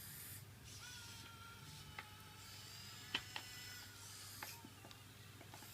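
Small electric gear motors of a toy RC excavator (Komatsu PC1250 replica) whining faintly through their cog gearboxes. A few sharp gear clicks come about two seconds in, twice just after three seconds, and once more near the end.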